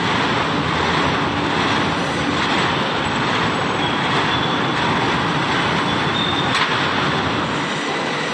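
Loud, steady mechanical roar of industrial machinery, with a faint steady whine running through it.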